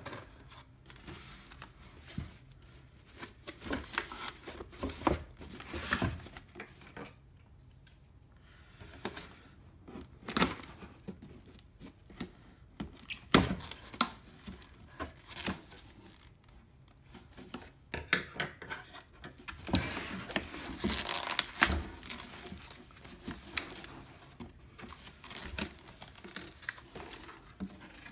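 Cardboard packaging and plastic foam wrap being handled and pulled apart: irregular rustling, scraping and tearing with occasional sharp knocks, busiest about two-thirds of the way through.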